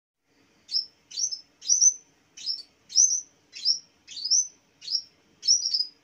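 Yellow-bellied warbler (cikrak bambu) singing: a run of nine short, high calls, one about every 0.6 seconds. Each call is a quick downward sweep that settles into a thin whistle.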